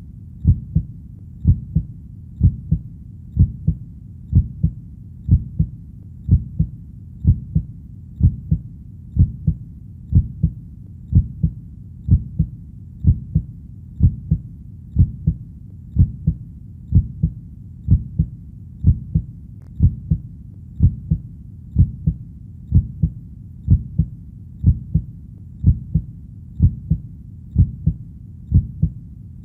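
Heartbeat playing steadily: paired low lub-dub thumps, about one beat a second, over a faint steady low background.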